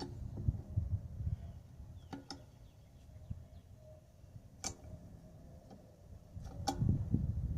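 A few sharp, separate clicks and knocks from clamps being handled and set on the glued tire sidewall patch, over a low rumble of handling noise that is louder near the start and the end.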